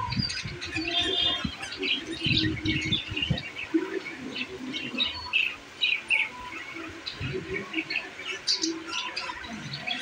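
Budgerigars chattering: a dense, continuous run of short chirps and squawks, with some low thuds in the first few seconds.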